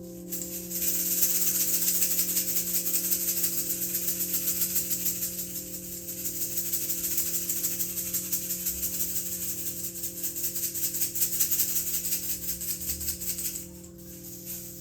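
A hand rattle shaken rapidly and continuously. It starts about a second in, eases briefly midway and stops near the end. Beneath it, a steady drone of several sustained tones, one of them slowly pulsing.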